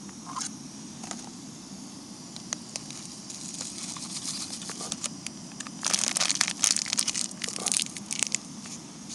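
Foil food pouch crinkling and rustling as its contents are shaken out into a metal mug, the crackling densest and loudest about six to eight seconds in. Under it, the steady sound of the lit canister gas stove.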